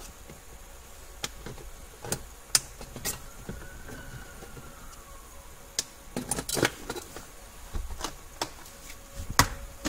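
Scattered plastic clicks and knocks, about a dozen at irregular intervals, from hands working a car's diagnostic plug and its wiring loose from the metal bracket under the dashboard.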